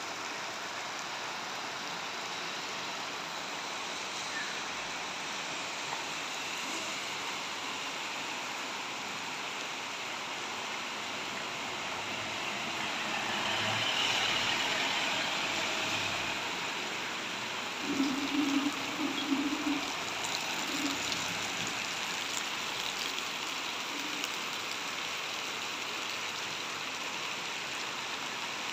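Steady rain falling on a street and roofs. About halfway through, a vehicle's tyres hiss past on the wet road, swelling and fading. A few brief low-pitched sounds break in about two-thirds of the way through.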